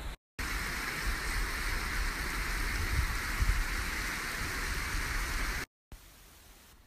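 Steady outdoor rushing hiss, brightest in the upper-middle range, with low wind rumble on the microphone that swells around the middle. It starts and stops abruptly at clip cuts.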